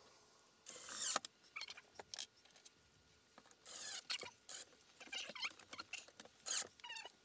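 Cordless drill/driver driving screws through a wooden board in short bursts, with high squeaks and chirps as the screws bite into the wood.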